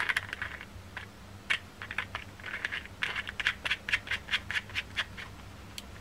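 Small metal atomizer top cap being screwed on by hand: a run of light scratchy clicks and scrapes from the metal parts and fingers, coming fastest, about four or five a second, around three to five seconds in, then stopping.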